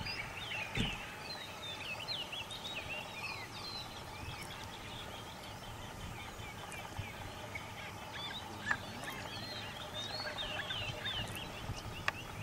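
Many wild birds chirping and calling together in short, quick rising and falling notes, with one brief low thump about a second in.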